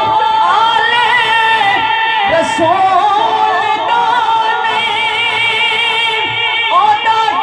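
A man singing a naat into a microphone, drawing out long wavering notes in a wordless melisma between lines of the verse.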